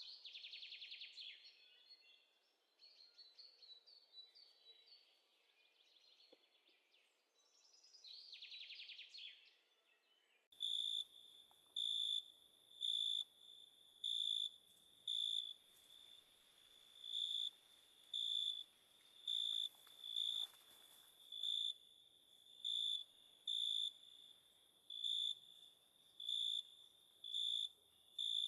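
Night insects: irregular high trills for the first ten seconds or so, then, after an abrupt change, a cricket chirping steadily about once a second, each chirp a short, clear, high note.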